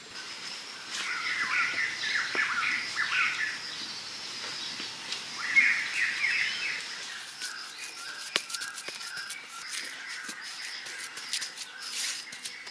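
Forest birds calling in two short bouts of harsh chirps over a steady high-pitched whine. Then comes a run of sharp clicks and taps as sticks and wet mud are handled on a stick roof.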